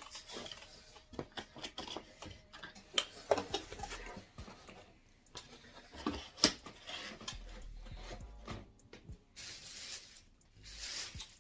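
Cardboard pizza boxes being handled: irregular taps, knocks and scraping rustles as the boxes are closed and moved around.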